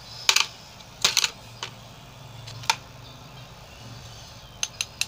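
A metal teaspoon and a plastic spatula clicking against each other and against a plastic mixing bowl while a sticky paste is scraped off the spoon. The sound is a handful of sharp, short taps at irregular intervals.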